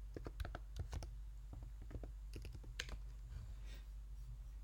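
Typing on a computer keyboard: a quick run of keystrokes in the first second, then a second, sparser run about two to three seconds in that includes one sharper click.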